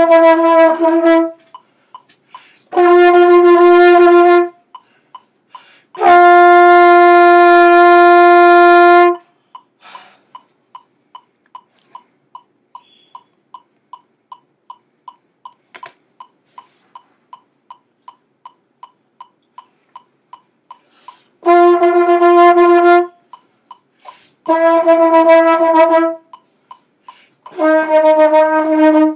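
Trumpet playing separate held notes at much the same pitch: three in the first nine seconds, the third held about three seconds, then three shorter ones near the end. A steady tick about three times a second runs throughout and is heard alone for some twelve seconds in between.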